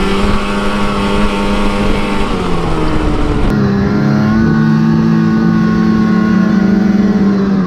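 Yamaha VK 540 two-stroke snowmobile engine running at a steady speed, easing off about two seconds in and picking up again a second later, with wind buffeting the microphone.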